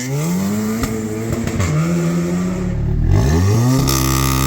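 Audi S3's turbocharged 2.0-litre four-cylinder engine, fitted with a 3-inch Scorpion downpipe and APR intake, being revved: the pitch climbs and drops twice, then holds at a raised idle, with a few sharp cracks around the first rev.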